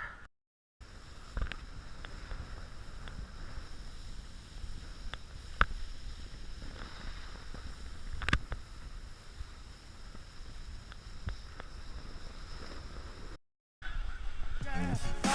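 Wind rumbling on a camera microphone, with a few sharp clicks and knocks scattered through it.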